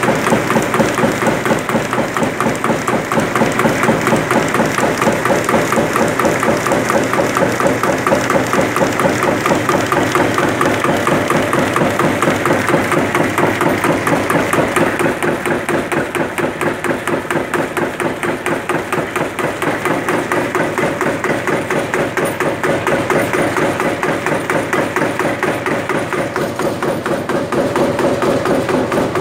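Sawdust briquetting press running, its ram knocking in a fast, even rhythm over the steady running of its drive, slightly quieter for a while midway through.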